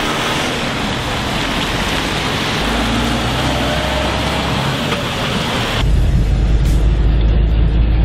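Trucks pulling away on a wet road: engine noise under a steady hiss of tyres on water. About six seconds in it changes abruptly to a low engine drone heard from inside a moving truck's cab.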